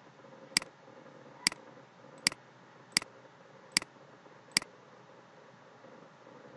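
Six sharp computer mouse clicks, about one every three-quarters of a second, each placing the next point of a polyline being drawn, over a faint steady hum.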